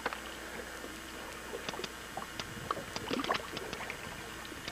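Faint water lapping and gurgling against a small boat's hull, with scattered small clicks and knocks; a few slightly louder gurgles come about three seconds in.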